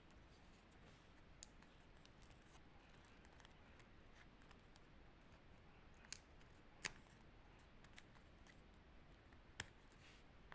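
Quiet handling of a handmade paper sticker book: faint paper sounds broken by four sharp clicks, the loudest about seven seconds in and again near the end.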